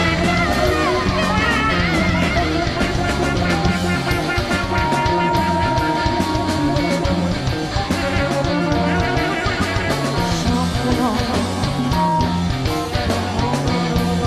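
Rock band playing: electric guitar over bass and drums, with wavering, bending high lines.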